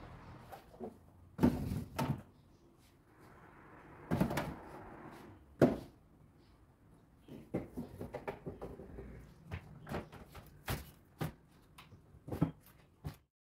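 Irregular knocks and clacks of containers and household items being handled and set down in an under-counter kitchen cupboard, with cupboard doors bumping shut. The sharpest knocks come about one and a half and about five and a half seconds in, and a run of smaller clicks follows.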